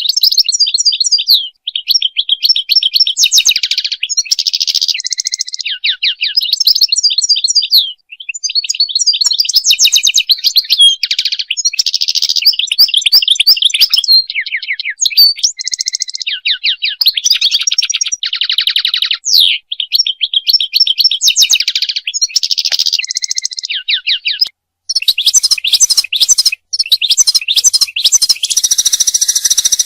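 European goldfinch song: a long run of rapid, tinkling twitters and trills with fast rising and falling notes, broken by short pauses, and a buzzier, denser phrase near the end.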